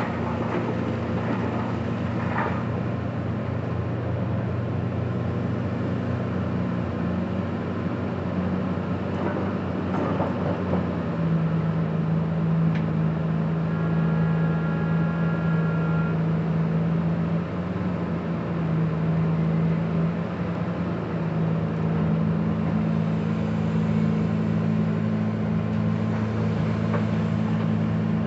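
Komatsu PC2000 hydraulic mining excavator's diesel engine running under load as it digs, a steady low drone whose pitch shifts about eleven seconds in, with a few knocks of rock.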